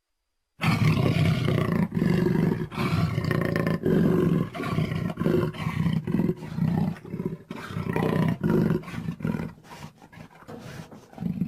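Utahraptor creature sound effect: a long, pulsing growling roar that starts about half a second in and breaks into shorter, choppier pulses near the end, with one last loud burst before it cuts off.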